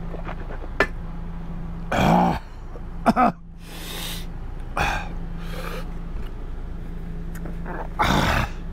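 A man coughing, clearing his throat and gasping several times, his mouth burning from a very spicy steak, the loudest bursts about two seconds in and near the end. A steady hum from a portable air conditioner runs underneath.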